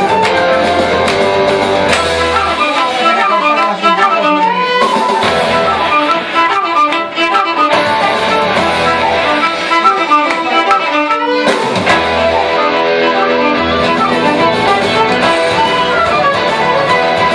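Live violin and flute playing a tune together, the violin leading with fast runs in the middle, over an accompaniment whose bass drops in and out.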